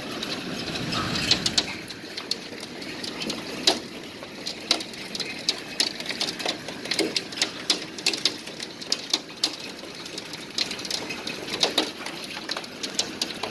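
Hail falling: hailstones striking in many irregular sharp clicks and knocks over a steady hiss.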